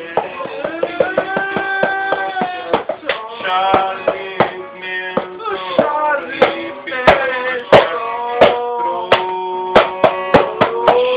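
Music: sustained pitched tones that waver and bend in pitch, over frequent, irregular sharp percussive hits.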